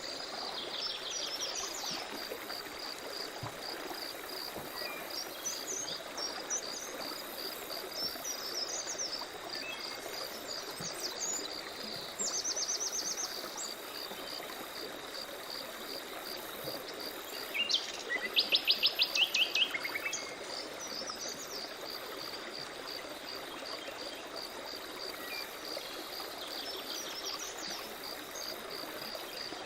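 Forest ambience: a stream running steadily, an insect chirping in a regular high pulse, and birds calling. A short rapid trill comes a little before halfway, and the loudest sound is a quick series of bird notes about two-thirds of the way through.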